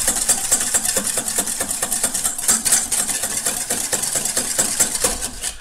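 Wire whisk beating a small amount of vinaigrette in a stainless steel mixing bowl: rapid, even metal-on-metal rattling strokes that stop near the end.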